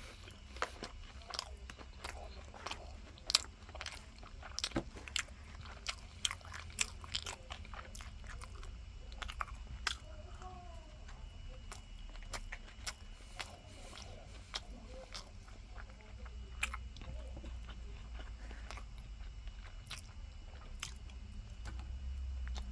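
Close-up crunchy chewing and biting of fried, breaded tonkatsu, with many irregular sharp crunches.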